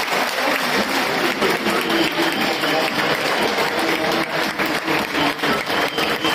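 Stadium crowd of football fans applauding, a dense steady patter of many hand claps with voices mixed in.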